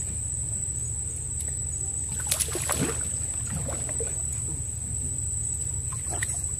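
Small boat engine running with a steady low hum, under a constant thin high whine. Short splashy bursts come about two seconds in and again near the end as a hooked sambilang catfish is played to the boat.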